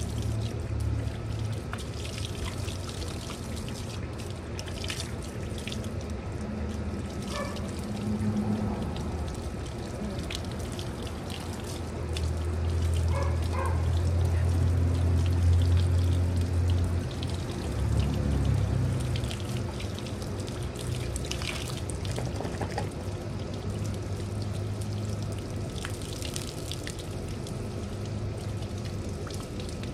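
Water running steadily from a garden hose, with a low hum that swells for a few seconds in the middle.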